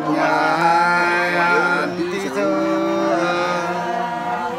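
Sli, the Nùng folk song of Lạng Sơn, sung by a male voice in long held notes that waver and slide, with a short break about halfway through.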